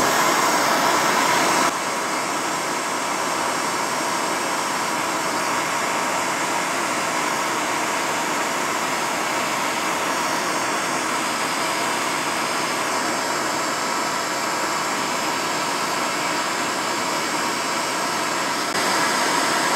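Handheld gas torch burning with a steady hiss as its flame heats a steel-vise-held eccentric strap for silver soldering. A little louder for the first couple of seconds, then even.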